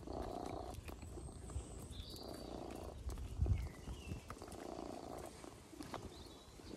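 Low rumbling from a pet in three bouts about two seconds apart, with a few short high squeaks and a dull thump about three and a half seconds in.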